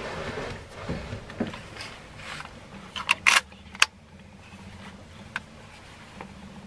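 Fabric rustling as hunting clothing and a face mask are adjusted, then a quick run of sharp clicks and taps from handled gear about three seconds in, over a faint steady low hum.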